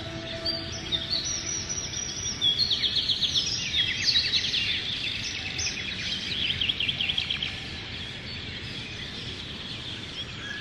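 Songbirds singing: quick high chirps and fast rattling trills, busiest in the middle seconds and thinning out near the end, over a steady background hiss.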